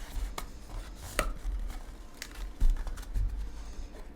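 A cardboard trading-card booster box being opened and its contents handled on a table: scattered taps and clicks, with a few dull thumps, the loudest about two and a half seconds in.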